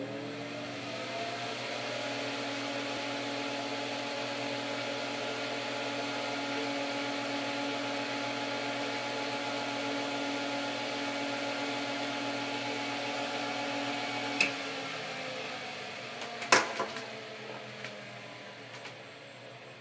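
Electric box fan running at a steady speed, its motor humming under the whir of the blades. About three-quarters of the way through there is a click and the fan winds down, with a sharper, louder knock a couple of seconds later.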